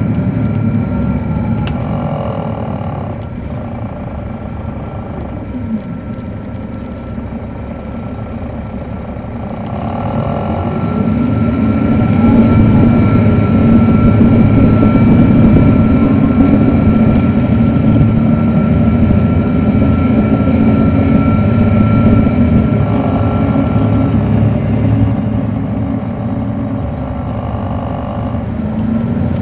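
Caterpillar C13 ACERT diesel engine of an MCI D4500CL coach, heard from on board. It eases off over the first few seconds, then pulls hard from about ten seconds in and stays loud for over ten seconds with a steady whine above it, before dropping back near the end.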